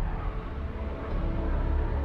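Action-film soundtrack: a deep, steady rumble of fighter jets under tense orchestral music.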